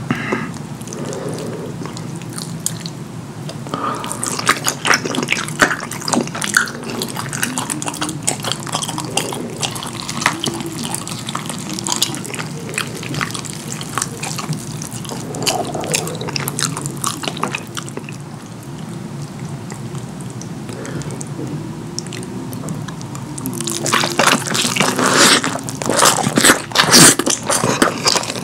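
Close-miked wet chewing and mouth sounds of someone eating saucy curry food, with many small sticky clicks and smacks. It gets louder and busier near the end.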